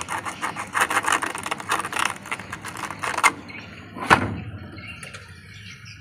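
Plastic scraping and rubbing as a washing machine's lid-lock switch and its wiring are handled, with two sharp clicks about three and four seconds in, the second one louder.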